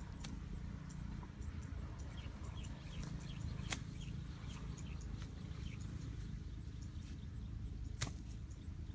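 Small birds chirping in quick, short, repeated notes over a steady low rumble of wind. A few sharp knocks come from a pole being jabbed into the soil of the bank, one about a third of the way in and the loudest near the end.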